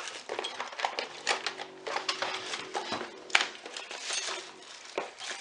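Small hand tools and metal objects clattering and clinking on a tabletop as they are picked up and moved about in a search, with irregular clicks and a sharper knock about three seconds in.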